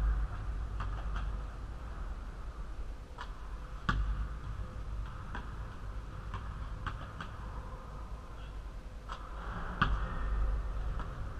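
A basketball on an indoor court: sharp thuds of the ball bouncing, being passed and caught, several seconds apart, with the loudest about four seconds in and near the end, over a low steady rumble.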